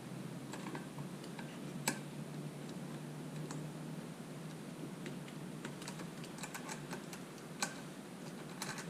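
Scattered small clicks and taps of a socket tool and nuts being worked onto the fender screws of an e-bike, with two sharper clicks standing out, over a faint steady hum.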